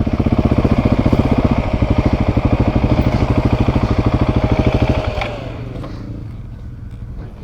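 Motorcycle engine running at a steady low speed with a rapid, even pulse, then easing off about five seconds in, its note falling away.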